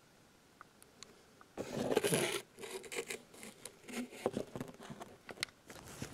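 Scraping and rubbing with scattered clicks as a Red Widow firecracker's paper-and-tape body is turned over and handled against a tabletop. The handling starts about one and a half seconds in, after near quiet.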